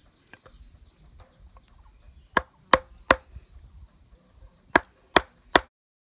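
Wooden mallet striking a chisel driven into a wooden plough body, cutting a mortise hole: two runs of three sharp knocks, about a third of a second apart, over a faint steady high hiss.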